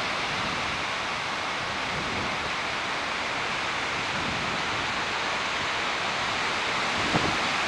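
Steady, even rushing hiss of wind through leafy trees from a dying tropical storm, with a brief low buffet of wind on the microphone about seven seconds in.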